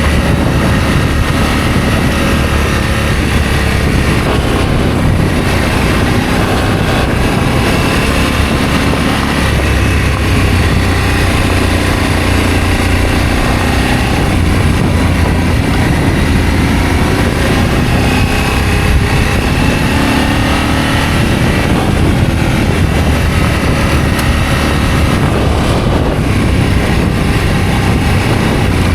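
Adventure motorcycle engine running under way, its note rising and falling with the throttle over a heavy low rumble.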